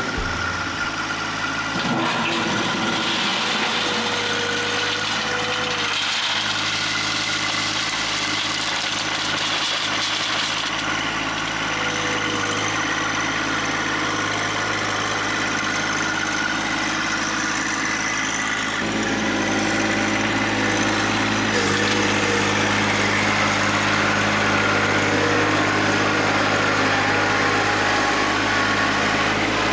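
Engine running steadily, with a sudden change in its sound about 19 seconds in.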